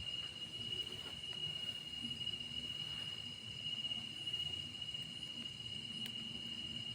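Night insects, crickets, trilling in one unbroken high note, over a low background rumble; a faint click about six seconds in.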